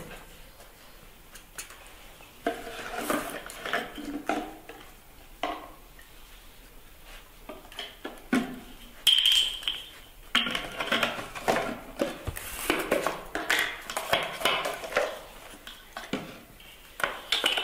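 Irregular clinks, taps and rattles of feeding things being handled: a small milk bottle, a plastic dish and a tin of powdered milk. The clatter grows busier from about ten seconds in, with one brief ringing clink just before.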